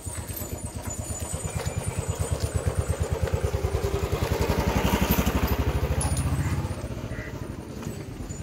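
Motorcycle engine running slowly with a rapid, even low putter, growing louder toward the middle and dropping away about two-thirds of the way through.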